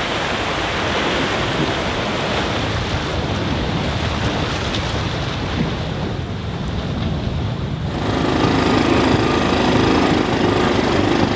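Waves washing against a rocky shore with wind. About eight seconds in, this cuts abruptly to an ATV's engine running steadily as the quad rides along a dirt track.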